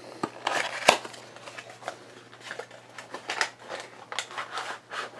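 Plastic and cardboard packaging being handled: an irregular string of small clicks, taps and short rustles.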